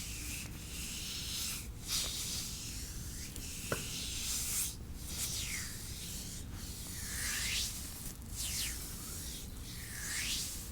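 Hands rubbing and stroking over the skin of a foot during a massage, picked up close by wrist-worn microphones: repeated swishing strokes every second or so, with one short click a little under four seconds in.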